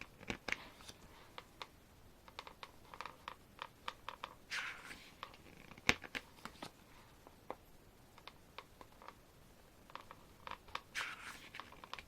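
Paper handling: glossy pages of a K-pop album photo book being turned and handled, with scattered light clicks and taps and a few short rustles of paper.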